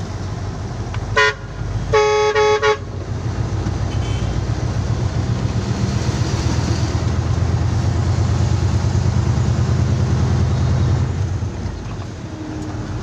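Two vehicle horn blasts, a short one and then a longer one about a second later, over the low drone of a truck engine on the move. The engine drone grows louder, then drops off near the end.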